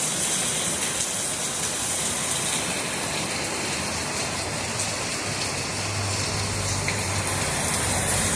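Rain pouring steadily in a downpour, a dense even hiss of falling water.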